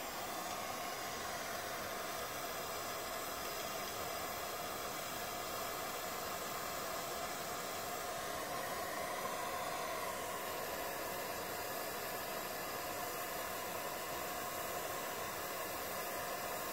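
TIG welding arc burning steadily: an even, continuous hiss.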